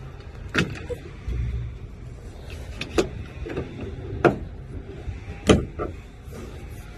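Four sharp clunks, the first about half a second in and the next three a little over a second apart, the last the loudest, with a short low rumble about a second in.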